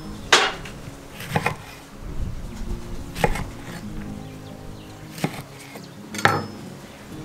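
Kitchen knife cutting a lemon on a wooden chopping board: about five sharp knocks as the blade goes through and hits the board, a second or two apart, over background music.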